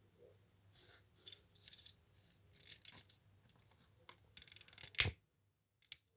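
Irregular crackling and rustling while a fireplace is being lit, with one loud sharp snap about five seconds in and a smaller one near the end.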